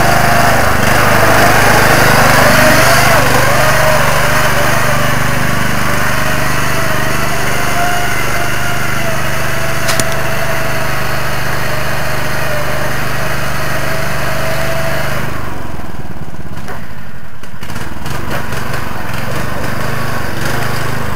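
Small engines of modified riding lawn mowers running under load as they drive through slick mud, the engine note rising and falling unevenly. There is one sharp click about halfway, and the low rumble falls away about three-quarters of the way through.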